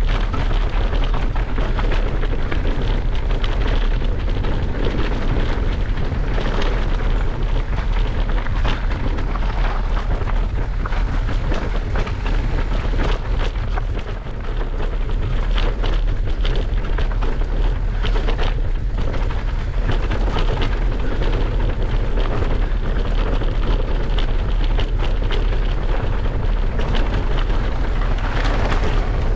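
Wind buffeting the microphone of a camera riding on an electric mountain bike, a loud steady low rumble, mixed with tyre noise and rapid rattling clicks from rough trail, easing briefly about halfway through.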